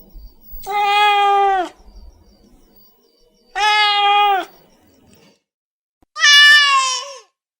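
Cat meowing: three long, drawn-out meows of about a second each, spaced a couple of seconds apart, the last one higher-pitched and falling in pitch at its end.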